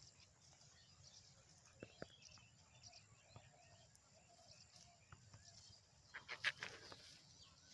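Quiet riverside ambience with faint high bird chirps, two soft clicks about two seconds in, and a short burst of rustling about six seconds in.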